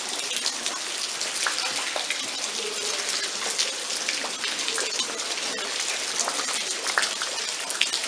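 Rain falling: a steady hiss with many separate drops ticking sharply close by.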